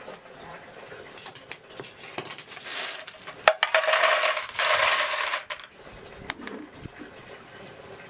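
Snails in their shells poured from a plastic colander into a metal cooking pot, clattering against the pot and each other for about two seconds in the middle.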